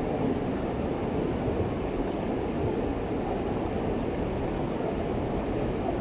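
River water rushing steadily over rocks in shallow rapids, a continuous low rushing noise.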